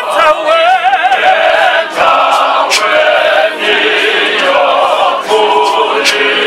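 A man's lead voice singing with a wavering vibrato, joined by a group of voices singing together in a church choir.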